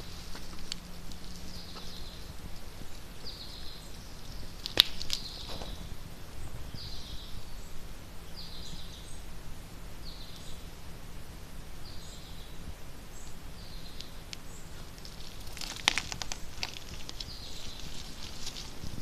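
A short buzzy animal call repeating about every second and a half, each call falling slightly in pitch, over an outdoor background. A sharp click comes about five seconds in, and a few more clicks and rustles near the end.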